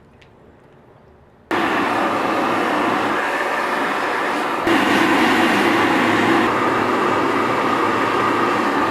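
A furnace fired up on trial: a loud, steady rushing roar starts suddenly about a second and a half in and grows louder about three seconds later.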